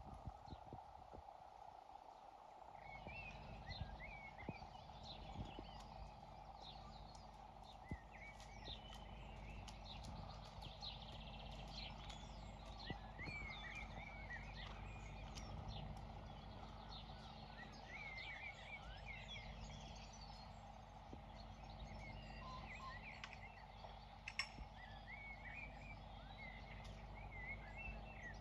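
Faint birdsong: many small birds chirping and twittering, with a steady low rumble that comes in about two seconds in and a few soft knocks.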